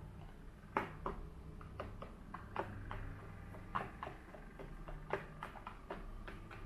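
Plastic rice paddle tapping and scraping against a plastic sushi mould while cooked glutinous rice is scooped and packed into it: a scatter of light, irregular clicks and taps over a faint low hum.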